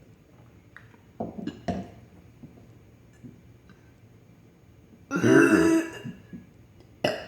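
A person belches loudly for about a second, about five seconds in, after a couple of short throaty sounds. Another contestant takes it for a forced burp.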